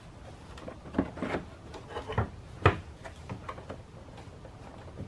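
Plastic engine cover being set down and fitted over the engine, then the oil filler cap put back on: a few hollow knocks about one and two-and-a-half seconds in, followed by lighter clicks.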